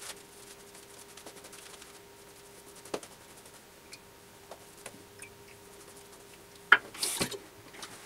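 A few small clicks and knocks from shaving gear being handled, with a sharp click and a short rustle about seven seconds in, over a faint steady hum.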